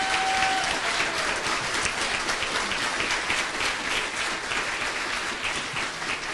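Audience applauding, a dense steady patter of many hands clapping that eases slightly near the end.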